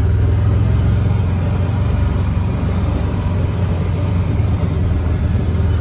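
Vehicle engine running steadily at a low pitch, idling with passengers aboard before it moves off.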